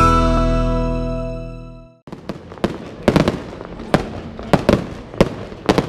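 The intro music ends on a held chord that fades away over about two seconds. Then a Weco fireworks display sets off a string of sharp bangs and crackles, about two or three a second.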